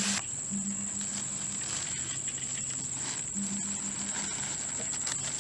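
Crickets or similar insects trilling steadily at a high pitch, with a low pulsing call coming in two short trains over them.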